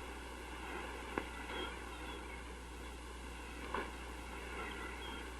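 Faint steady background noise with a low hum, and a single sharp click about a second in.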